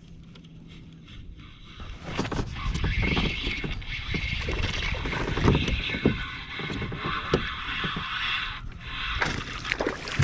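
Rushing water and buffeting noise around a kayak, with scattered knocks against the hull, starting suddenly about two seconds in.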